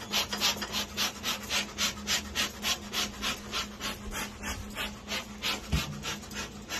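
A lit bee smoker's bellows being pumped steadily, each squeeze a short hiss of air through the fire chamber and out the nozzle, about four puffs a second. A single dull bump about six seconds in.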